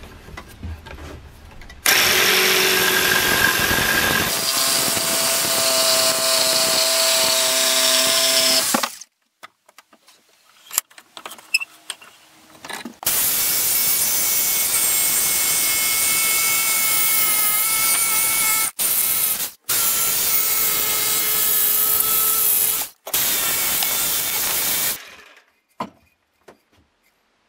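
Jigsaw cutting through a wooden plank along a marked handle outline, the blade running steadily in two long runs of several seconds each, with a pause between and a few brief stops in the second run. It goes quiet near the end.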